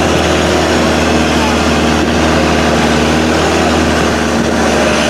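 Motorboat engine running steadily under way, with loud rushing wind and water noise over it.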